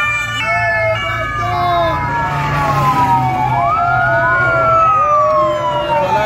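Sirens of a passing motorcade. A two-tone siren stops just after the start, then several overlapping wailing sirens slide slowly down in pitch and sweep back up, over the rumble of the passing escort motorcycles and vehicles.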